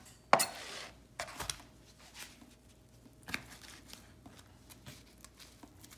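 A knife cutting through a rack of cooked pork spareribs on a plastic cutting board and knocking against it. One sharp knock comes about a third of a second in, then a few softer knocks and scrapes.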